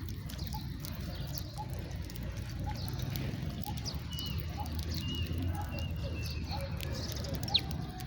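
House sparrows chirping: many short, scattered chirps, with one sharp falling note near the end, over a steady low rumble.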